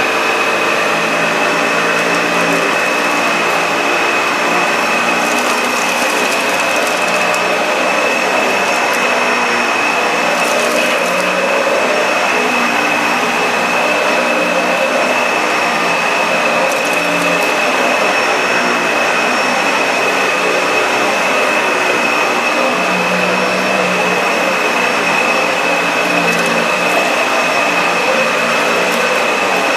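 Dyson DC65 upright vacuum cleaner running at full power: a steady high-pitched motor whine over a loud rush of air, with a lower hum that rises and falls.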